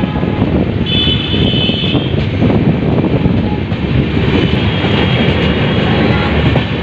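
Passenger express train running at speed, heard from an open coach doorway: a steady rumble and rattle of wheels on the track. A high tone sounds briefly about a second in and again around five seconds in.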